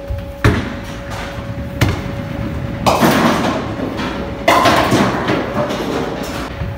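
Bowling ball thrown and rolling down the lane, with two sharp knocks early on, then two loud clattering crashes of bowling pins being struck, about three and four and a half seconds in.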